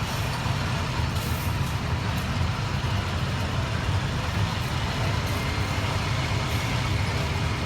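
Heavy truck engine running steadily, a continuous low rumble with no change in pace.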